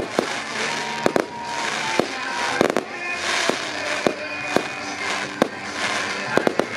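Aerial fireworks finale: shells bursting in sharp bangs at irregular intervals, about two a second, over a continuous crackling haze.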